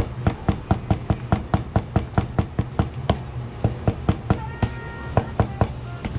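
Kitchen knife rapidly chopping raw fish and green onion on a cutting board, mincing it into namerou. There are about four knocks a second, with a short break about three seconds in, and the chopping stops shortly before the end.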